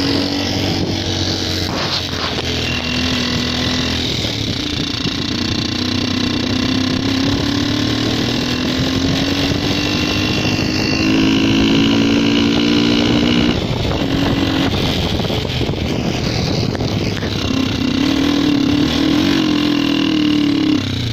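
Yamasaki Sky 72 cc motorcycle's small single-cylinder engine running under way, its note climbing slowly and dropping back a few times as the ride goes on, with wind noise.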